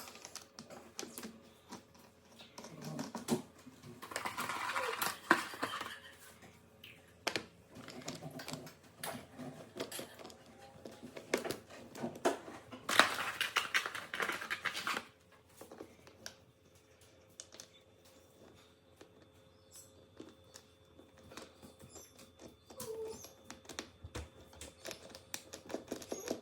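Rubber suction cups being pushed through plastic hammock feet and spun tight: scattered clicks and taps of plastic parts handled, with two longer stretches of rubbing and scraping about four and thirteen seconds in.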